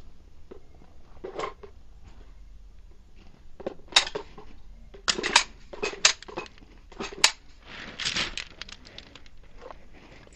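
Handgun being handled: a string of sharp metallic clicks and clacks at irregular spacing, the loudest about four, five and seven seconds in, with a short rasp just after.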